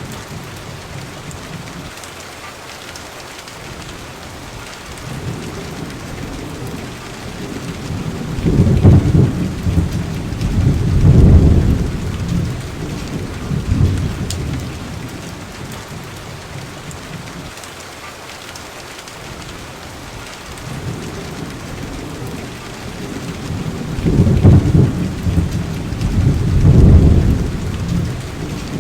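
Steady rain with rolling thunder: two long low rumbles, each swelling twice, about a third of the way in and again near the end.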